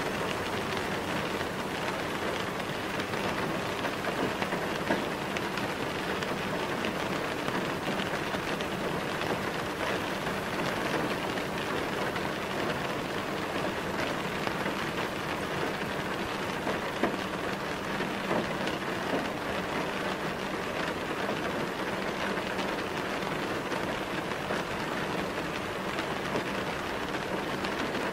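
Steady rain falling, an even hiss with a few louder drops here and there, used as the cover sound of a subliminal track.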